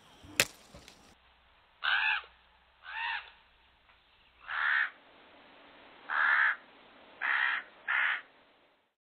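A crow cawing, six single caws at irregular intervals, with a sharp click about half a second in.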